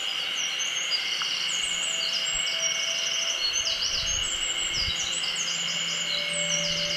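Eurasian wren singing: a long, fast run of high trills and sweeping notes without a break, over a steady high-pitched whine in the background.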